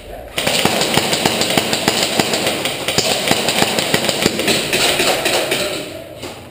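Airsoft electric gun firing a long full-auto burst: a fast, steady rattle of shots over the whir of the gearbox. It starts about half a second in and tails off near the end as the magazine runs out of BBs.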